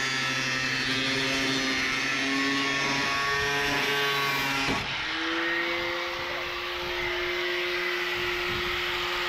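Electric angle grinder with a thin cut-off disc cutting through a truck cab's sheet-steel pillar, its motor whining steadily under load. About halfway through the sound changes abruptly to a single steadier, higher whine.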